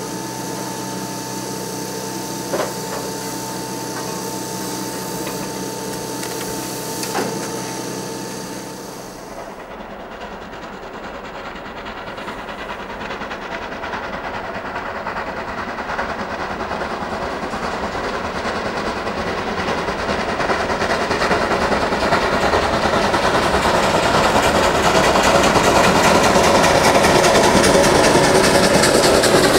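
A class 50 steam locomotive standing, hissing steadily with a couple of short clicks. After a cut about nine seconds in, a steam locomotive hauling a passenger train approaches under heavy steam, its exhaust and running noise growing steadily louder.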